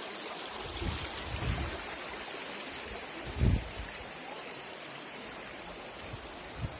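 Waterfall water rushing steadily, with a few short low bumps, the loudest about halfway through.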